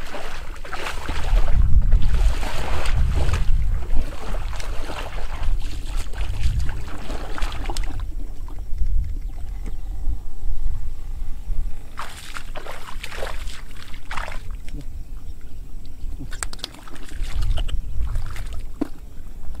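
Shallow muddy water splashing and sloshing as hands and feet work through it, in bursts with a quieter stretch in the middle, over a low rumble of wind buffeting the microphone.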